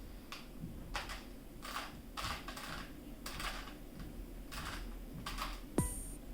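3x3 speed cube being turned quickly by hand: rapid clicking and clacking of layer turns in quick bursts. Near the end, music with a pitched note falling in pitch comes in.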